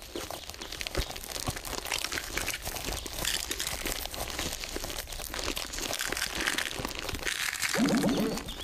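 Cartoon sound effect of a silk cocoon crackling and crunching as it splits open: a steady papery crackle of many small cracks. A short pitched sound joins it near the end.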